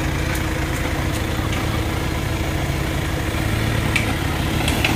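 An off-road 4x4's engine running steadily at idle, an even low hum, with a couple of faint clicks about four seconds in.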